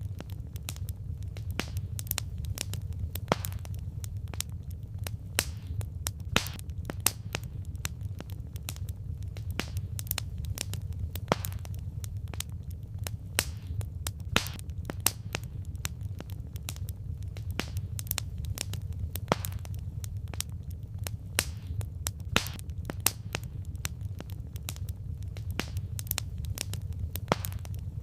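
Wood fire crackling: irregular sharp pops and snaps from burning logs over a steady low rumble of the flames.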